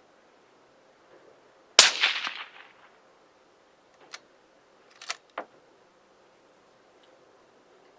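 A single suppressed rifle shot from a .243 fitted with a 12-inch custom suppressor, its report trailing off over about a second. A couple of seconds later come three short, sharp clicks.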